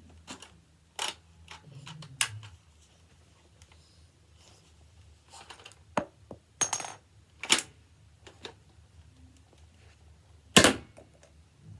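Toy sniper rifle being handled and cocked: a string of sharp plastic clicks and clacks, with one loud sharp snap near the end as it fires.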